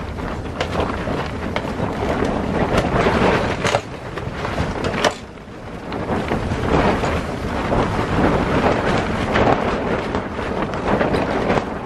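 Strong wind gusting against the tent, the tent walls flapping and snapping in surges that ease off for a moment about five seconds in. These are gusts up to 35 miles an hour, strong enough to rock the stovepipe back and forth.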